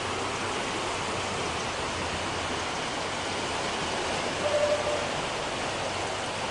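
Steady rushing of water let out through a river lock's sluices as the lock chamber is emptied.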